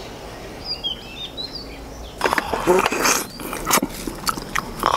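A few birds chirp over a quiet outdoor background. About two seconds in, a dense run of sharp smacking and tearing sounds begins as whole poached chickens are pulled apart by hand and eaten.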